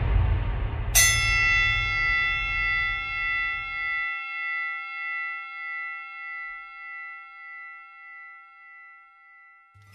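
A single bell-like chime struck once about a second in, ringing with several clear overtones and slowly fading with a gentle wavering. Under its start, the low rumble of electronic intro music dies away.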